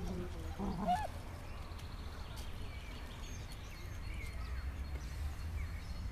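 Dachshunds making short, bending, growly play vocalizations as they wrestle, in the first second. After that, mostly a steady low rumble of wind on the microphone.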